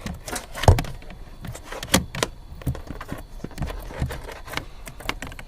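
Hood release cable being pulled through the car by hand, clicking and knocking irregularly against the body panels, loudest about three-quarters of a second in. The cable is catching on a snag as it comes.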